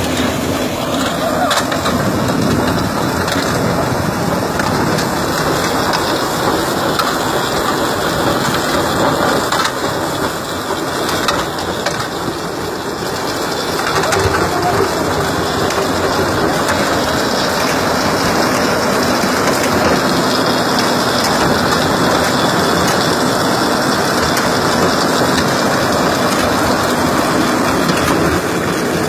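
Tractor-driven pumpkin seed harvester running steadily. Its drum crushes the pumpkins fed into it, over the hum of the tractor engine.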